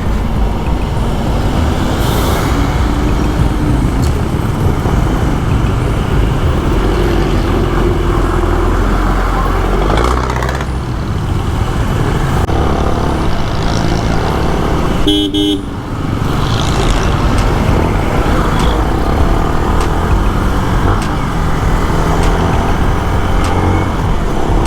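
Riding a motorcycle through city traffic: steady engine and wind rumble on the microphone, with a short vehicle-horn toot about fifteen seconds in.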